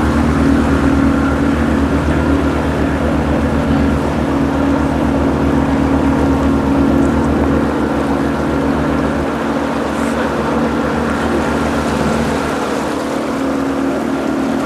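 Outboard motor of a river raft running steadily under way, a low even drone.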